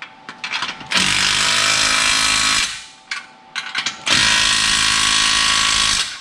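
Impact wrench running in two sustained bursts of about two seconds each, tightening an exhaust clamp nut, after a few short trigger blips.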